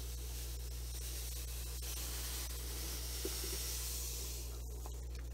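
Pool filter sand pouring from a cup into a glass aquarium, a steady hissing trickle that grows about two seconds in and fades near the end.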